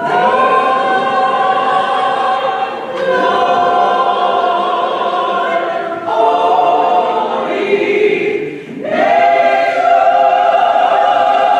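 A choir singing slow, held chords in phrases of about three seconds each, with a brief breath between phrases.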